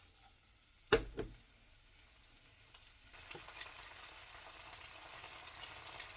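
Spaghetti sizzling as it is tossed in a hot pan of olive oil and garlic sauce. There is a sharp knock about a second in, with a smaller one just after, and the sizzle grows louder from about three seconds in.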